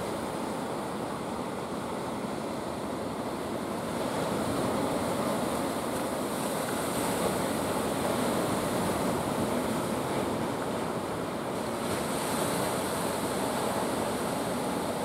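Ocean surf washing onto the shore in a steady rushing wash, a little louder from about four seconds in, with a couple of brief hissing swells as waves break.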